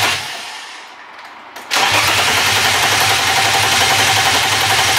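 Starter cranking a swapped BMW inline-six that turns over with a steady rapid rhythm but does not catch. The fuel pump has no power because of a corroded, broken fuse, so no fuel reaches the engine. The cranking dies away in the first second and starts again abruptly just under two seconds in.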